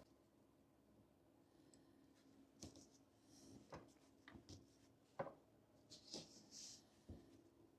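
Faint handling noises: a few scattered small clicks and taps, one sharper about five seconds in, and two brief scraping rustles. These are small parts being handled and worked on a bench while epoxy is applied to a magic-arm clamp.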